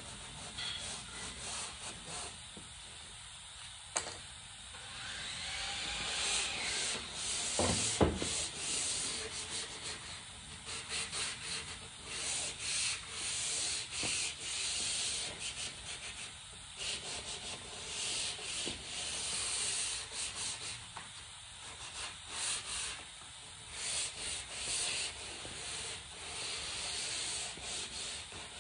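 Sandpaper rubbing on a wooden fluted column in repeated back-and-forth strokes with short pauses, with a single knock about eight seconds in.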